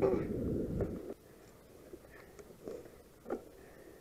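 Wind and riding noise on a mountain bike's handlebar camera, a low noise that stops abruptly about a second in. After that only a few faint ticks and rattles.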